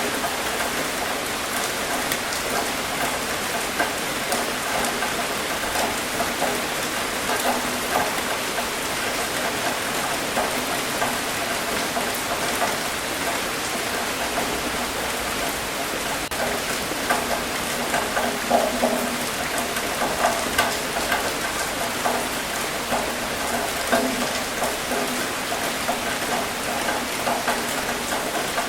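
Steady rain falling and pattering on a surface, an even hiss with many small drop impacts and a few brief heavier spatters.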